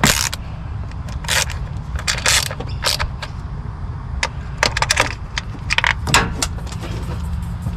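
Metal hand tools clinking and a ratchet clicking while a spark plug is changed on an engine, with a dozen or so sharp, irregular clinks spread through, over a steady low hum.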